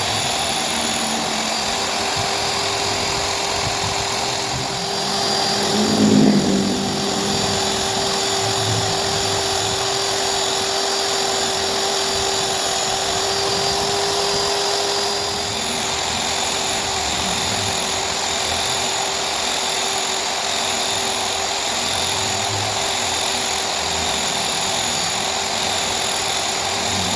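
Electric power-tool motor running steadily, with a louder swell about six seconds in, heard while planer blades are being sharpened.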